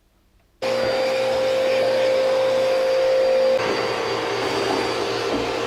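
An electric motor running with a steady whir and a held whine. It starts abruptly about half a second in, and its pitch drops slightly about halfway through.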